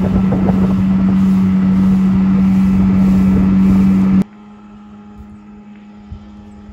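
Small motorboat's motor running steadily and loudly, a constant hum over rushing noise, while under way. About four seconds in it cuts off abruptly to a much quieter, faint background.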